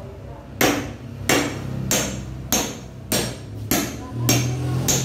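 Claw hammer driving a nail through a 2x2 wooden batten laid on the floor, with about eight sharp strikes at a steady pace of roughly one every 0.6 seconds.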